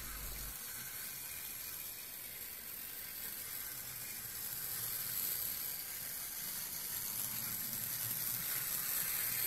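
Faint whirr and hiss of a Faller Car System H0 model truck's tiny electric drive motor and gearbox as it runs, growing a little louder toward the end as the truck nears.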